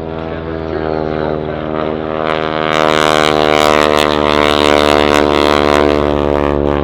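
Boeing Stearman N2S-4 Kaydet biplane's radial engine and propeller in a low flypast: a steady engine drone that grows louder over the first few seconds, is loudest in the middle with a rush of propeller noise, and eases off slightly near the end.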